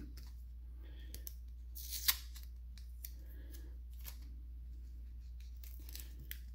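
Hard plastic card holders clicking and sliding against each other as stacks of cards are handled and set down on a table, with a short scrape about two seconds in.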